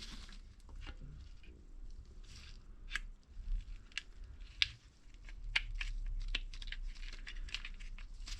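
Scattered light clicks and rustling as the parts of a pull-cord recoil starter (pulley, spring and clip) are handled and turned into place.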